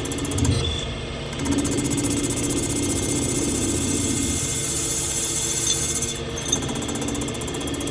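CNC machine running steadily as it cuts, its pitch shifting slightly as the load changes about a second and a half in and again near the end.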